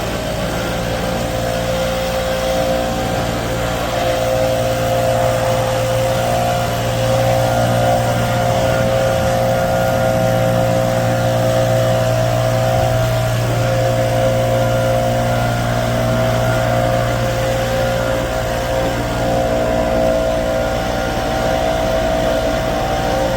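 A steady machine drone: a motor running at an even speed, holding the same hum throughout.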